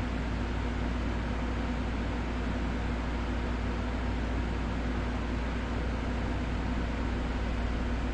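Steady machine hum and hiss running without change, with a constant low drone underneath.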